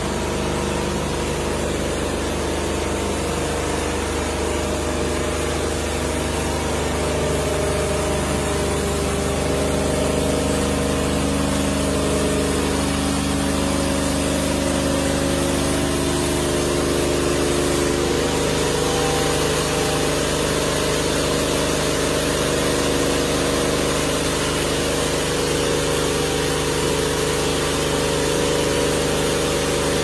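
Diesel engine of a portable band sawmill running steadily while the band blade cuts through a squared log, its mid-pitched tones wavering as the blade takes load.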